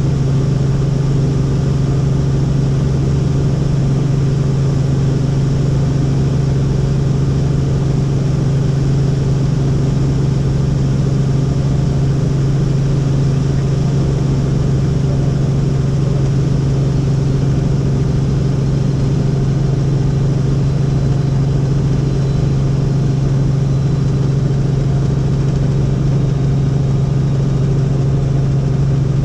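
Helicopter in flight: a steady drone of engine and rotors with a strong, even low hum that does not change.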